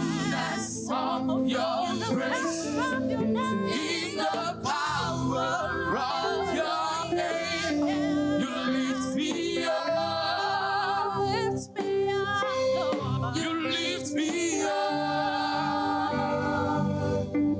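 Church choir singing a gospel worship song, voices moving in harmony over steady low musical backing.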